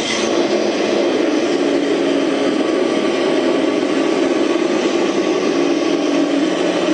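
ESS One engine-sound system playing a Ford Mustang Cobra engine sound file through its speaker, a steady engine drone at an even speed.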